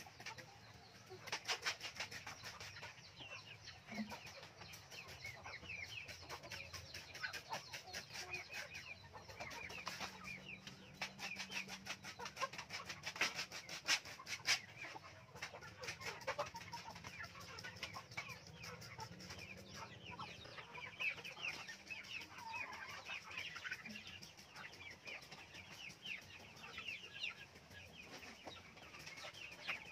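Backyard chickens clucking and calling, with repeated quick squirts of a hand-held trigger spray bottle misting disinfectant in clusters at a few points.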